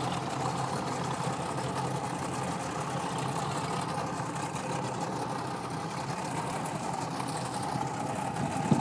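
Motorboat engine idling steadily with an even hum.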